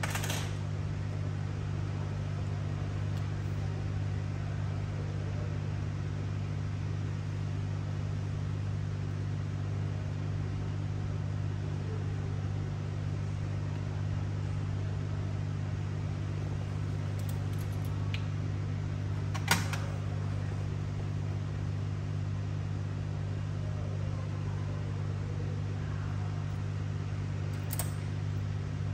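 Steady low mechanical hum, like a fan or small motor running, with a few short clicks or taps; the sharpest comes about two-thirds of the way through.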